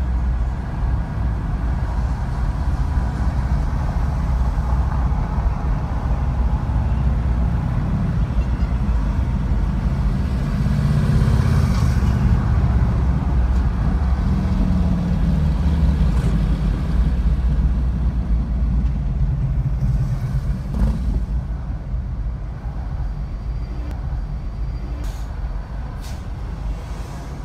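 Car driving in slow city traffic: a steady low rumble of engine and road noise, a little louder in the middle and easing near the end.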